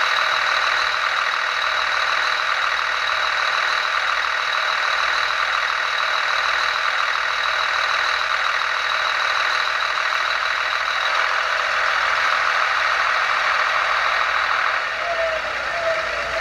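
Recorded diesel engine idling sound from the loudspeaker of a Märklin 37730 model DB class 648.2 (LINT 41) railcar, a steady noisy running sound with a thin high whine. It eases off slightly near the end, with a short falling tone.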